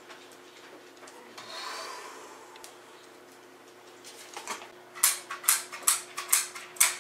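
Footsteps on a hardwood floor: a quick run of sharp taps, about two a second, in the last two seconds, over a faint steady hum and after a brief soft rustle about a second in.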